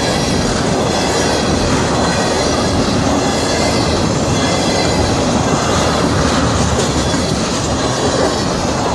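Freight train of ethanol tank cars rolling past close by, a loud, steady noise of steel wheels running on the rails.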